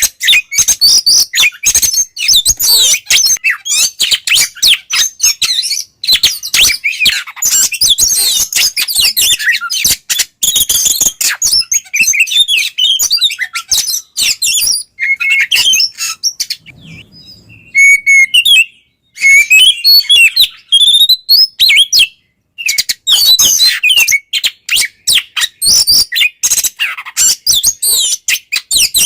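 Oriental magpie-robin (kacer) in full, continuous song (ngeplong): a fast, varied run of loud whistled and chattering phrases, broken by a short pause a little past halfway.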